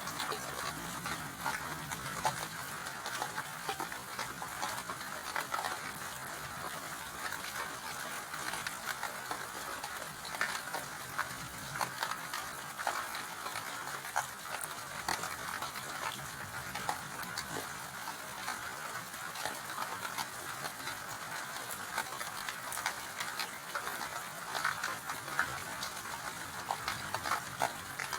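Steady rain: an even hiss dotted with many sharp ticks of individual drops.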